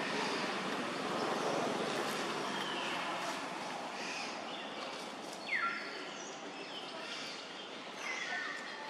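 Infant macaque giving a few short, high calls that fall in pitch, the loudest about halfway through, over a steady hiss of outdoor background noise.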